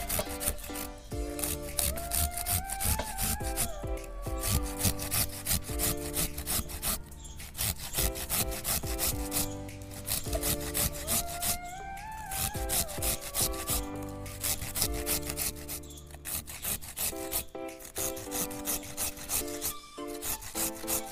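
A carrot being rubbed up and down a flat stainless-steel hand grater, a quick run of repeated rasping strokes as it is shredded. Background music plays under it.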